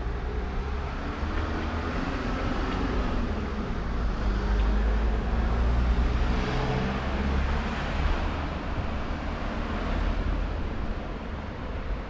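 A motor vehicle passing, engine and tyre noise rising to a peak about six seconds in and then easing off.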